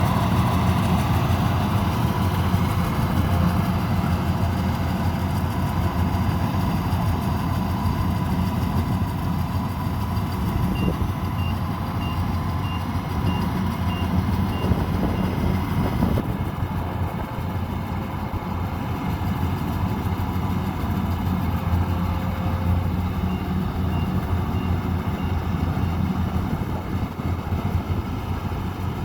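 Rice combine harvester's engine running steadily. Twice, a run of short high beeps, about two a second, sounds over it, like a reversing alarm.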